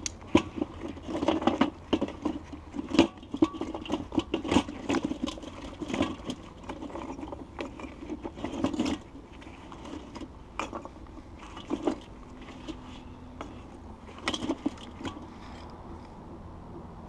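Charcoal briquettes and a chunk of hardwood being shifted and set by hand in a smoker's charcoal bowl: irregular clinks, knocks and scraping, busiest in the first half, then a few scattered knocks.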